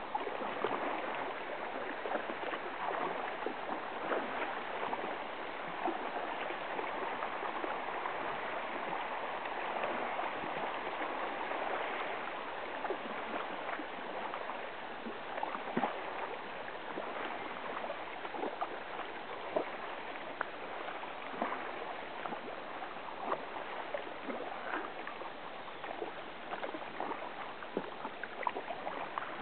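River water rippling and splashing along a kayak as it moves down a shallow river, a steady wash dotted with many short clicks and splashes.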